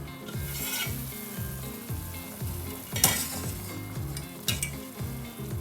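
Pot of chicken stock bubbling and hissing on the heat while it is stirred, with a utensil knocking against the pot about three seconds in.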